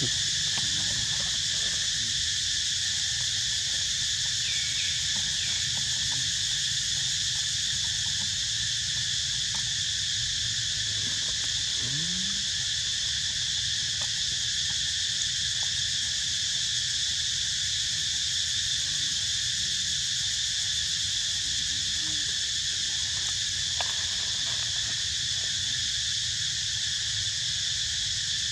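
Steady, high-pitched drone of insects calling in chorus, over a low rumble, with a couple of faint short calls.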